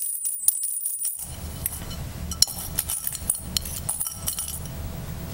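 Metal dog tags clinking and rattling in plastic cups as they are mixed for a lottery draw: many irregular sharp clinks, over a low rumble that comes in about a second in.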